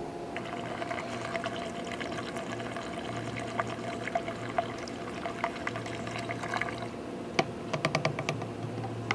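Radiator flush liquid pouring steadily from a plastic bottle through a funnel into a generator's radiator fill neck, with a few sharp clicks near the end.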